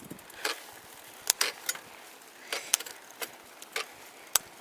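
Mountain bike gears being shifted on a Specialized Hardrock Sport: about ten sharp, irregular clicks from the shifter and the chain moving across the rear cogs as the rear derailleur's adjustment is tested.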